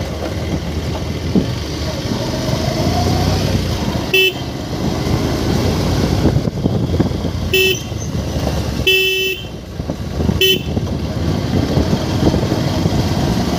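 Motorcycle running along at riding speed with steady engine, wind and road noise, its horn honked four times: three short toots and one longer blast about nine seconds in.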